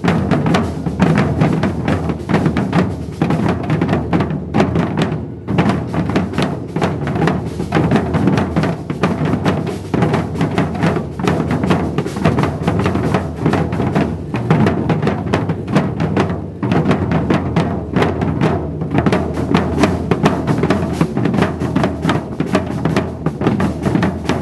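Maracatu percussion ensemble drumming a dense, steady rhythm of deep drum strokes.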